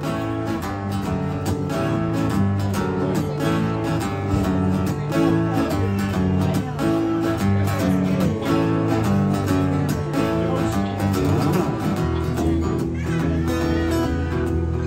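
Band playing an instrumental passage led by guitar over a steady beat, with a deeper bass line coming in near the end. Nobody sings.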